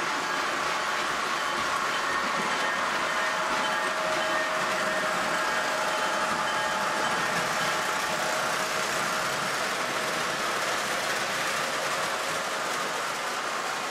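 Three-rail O gauge model train, a CP Rail locomotive hauling black hopper cars, rolling past on the track: a steady noise of wheels running on the rails with a faint held tone from the running gear.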